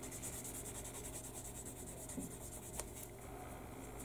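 Sanding stick rubbed in quick back-and-forth strokes over a small plastic model-kit part, a soft steady scratching, smoothing off the nubs left where the part was cut from the sprue.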